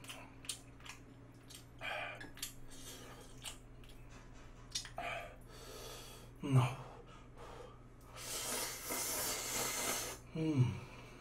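Person eating very spicy Buldak fried noodles: chewing and heavy breaths, with a long noisy slurp of noodles lasting about two seconds near the end. Two short groans falling in pitch come in, one a little past the middle and one at the end.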